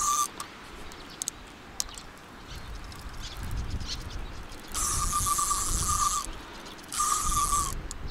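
Fishing reel's drag buzzing as a large carp pulls line off it, in two runs: one of about a second and a half starting about five seconds in, and a shorter one about seven seconds in. Before them come a few light clicks and handling noise.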